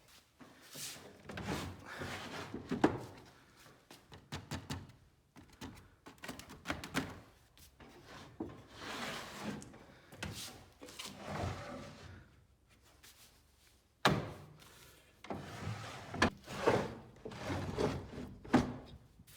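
Wooden desk parts and drawers being handled: irregular knocks, thunks and scraping, with one sharp knock about two thirds of the way through.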